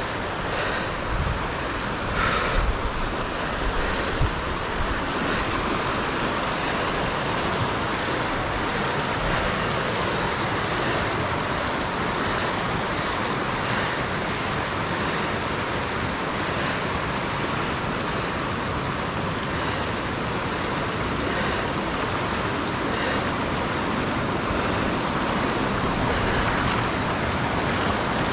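Steady rushing noise, with a few faint knocks in the first few seconds.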